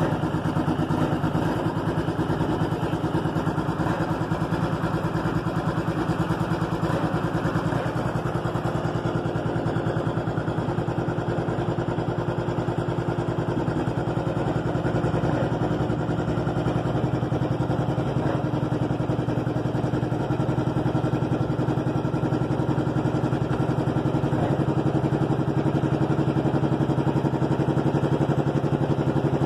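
Cummins diesel engine in a pickup running steadily. It has a turbo fault that has it smoking heavily.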